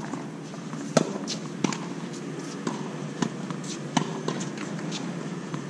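Tennis balls being struck by racquets and bouncing on a hard court during a rally: a string of sharp pops, about nine in all, the loudest about a second in and about four seconds in.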